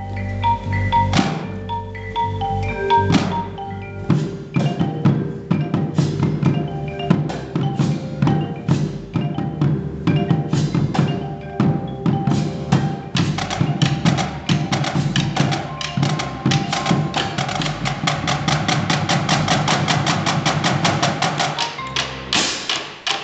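Indoor drumline playing: marimbas and other mallet keyboards ring out pitched notes over snare drums, bass drums and cymbals. About halfway through the drumming turns into a dense run of fast strokes, which breaks off briefly near the end.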